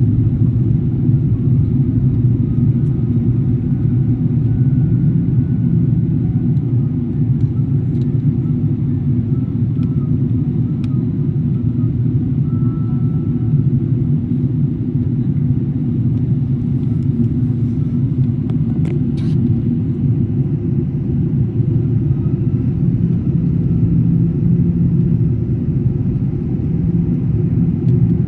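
Steady low rumble of an Airbus A380 airliner, even and unbroken, with a faint brief click about nineteen seconds in.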